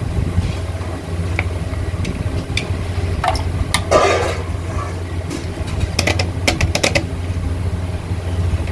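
A steel spoon scraping thick yogurt out of a plastic cup, with a few sharp clicks and a short wet scrape a little past the middle, over a steady low hum.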